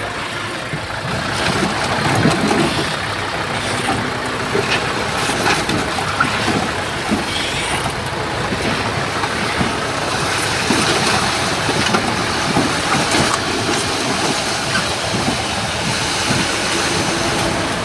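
Heavy diesel earthmoving machinery running steadily, with a constant stream of short knocks and rattles.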